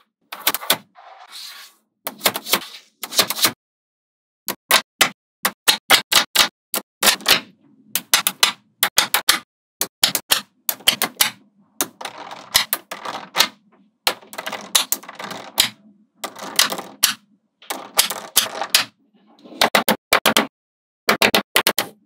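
Magnetic balls clicking as they snap together, in quick runs of sharp clicks broken by brief silences, with softer rustling between some of the runs.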